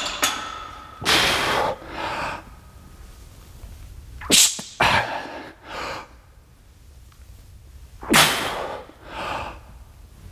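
A man's forceful breaths during barbell back squat reps, coming in about three pairs a few seconds apart.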